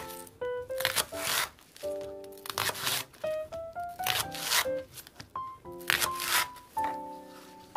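A chef's knife slicing lengthwise through a Korean green onion stalk on a wooden cutting board, giving several crisp cuts at irregular intervals. Light background music with plucked notes plays throughout.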